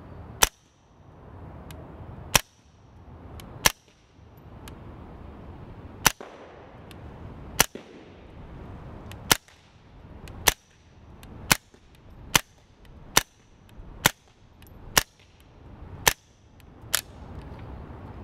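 Suppressed shots from a B&T KH9 9 mm pistol fitted with an Octane 9 suppressor and firing 147-grain ball, about fourteen sharp reports. They are spaced unevenly at first and come about once a second in the second half.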